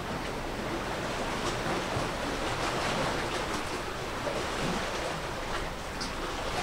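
Steady wash of sea waves with some wind, with faint small splashes or ticks here and there.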